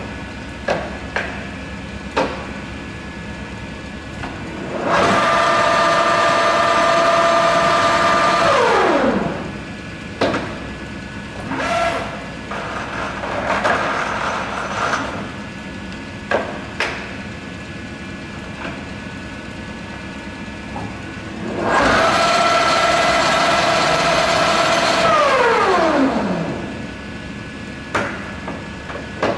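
10 HP American Pacemaker engine lathe, its motor running steadily while the controls are worked with short clicks and clunks. Twice the spindle is engaged and its drive whines at a steady pitch for about three or four seconds, then the whine falls away as the spindle is let go and coasts down.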